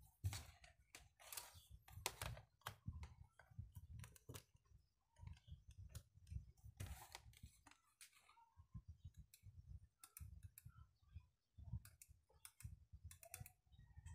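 Faint, irregular clicking of the small push-buttons on a DH48J digital counter's front panel as its preset digits are set, with dull knocks from the plastic box being handled.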